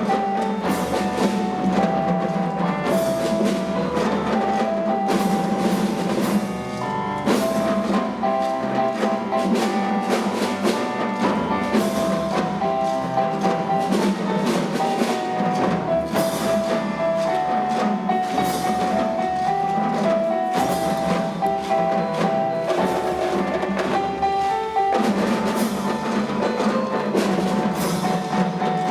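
Music with a steady beat of percussion and a melody played on bell-like mallet instruments.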